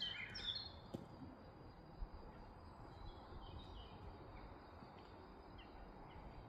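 Faint birdsong: a few short chirps, busiest in the first second and scattered after, over quiet outdoor background, with a faint click about a second in and a soft knock about two seconds in.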